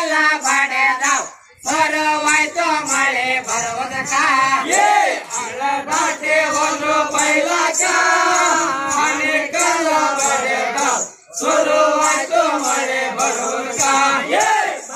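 A Rivayat pada folk song sung by voices in chorus, with short breaks between lines about a second and a half in and again about eleven seconds in.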